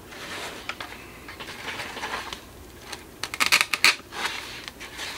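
Plastic model-kit parts being handled and picked up from a cutting mat: light clicks and rustles, with a quick rattle of sharper clicks about three and a half seconds in.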